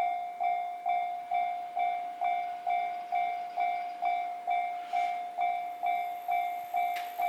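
Japanese level-crossing alarm bell sounding its repeated electronic "kan-kan" tone, about two strikes a second, each struck sharply and dying away. It signals that a train is approaching and the crossing is closed.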